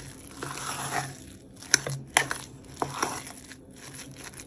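Steel spoon stirring and mashing a thick sweet chana dal and coconut filling in a stainless-steel bowl, with soft squishing and a few sharp clinks of the spoon against the bowl around two to three seconds in.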